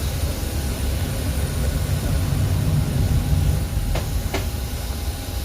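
Steady low rumble of an airliner's boarding ambience, from its air supply and ventilation, with two short sharp clicks about four seconds in.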